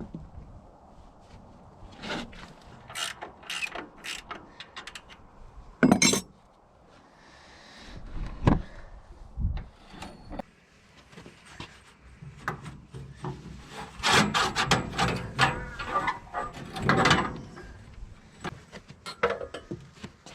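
Hand work on a sawmill while its saw blade is being changed: scattered clicks and knocks of parts being handled, a sharp bang about six seconds in, and a dense spell of rattling from about fourteen to eighteen seconds.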